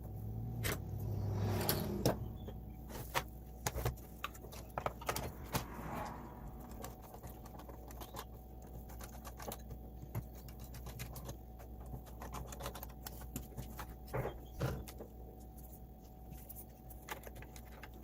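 Scattered clicks, taps and rattles of a Roomba i7's plastic parts being handled by hand, irregular and sharp, busiest in the first few seconds.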